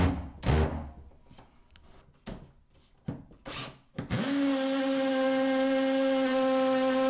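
Cordless drill driving a hole saw into a wooden countertop to cut a faucet hole. It starts with a few short trigger bursts, then from about four seconds in the drill runs at a steady pitch, a constant motor whine.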